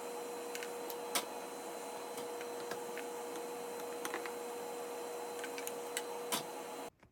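Pot of spicy ramen simmering: scattered pops and clicks of bubbles over a steady hiss with a faint hum. It cuts off suddenly near the end.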